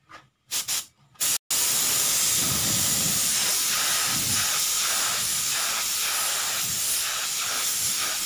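Gravity-feed air spray gun spraying: two short trigger spurts, then a long steady hiss of atomising air. The painter is blending the edge of a fresh clear coat into the old finish on a car panel.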